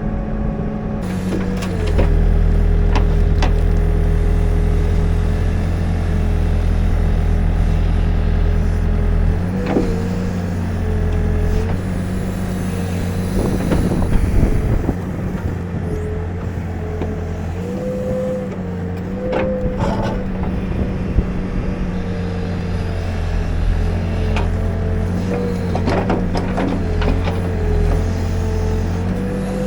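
Diesel engine of a New Holland B95 backhoe loader running under working load, its pitch dropping and rising several times as the hydraulics take load, with a few sharp knocks of the machine working.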